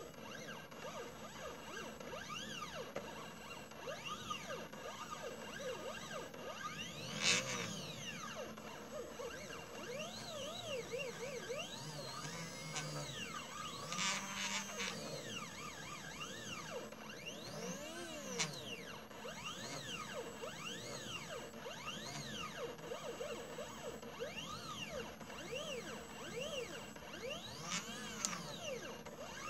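Stepper motors of a mini CNC laser engraver whining as the head traces an engraving pattern, the pitch rising and falling with each short move.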